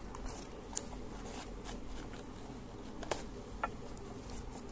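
A small cardboard product box being opened and handled: faint rustling of card with a few sharp clicks.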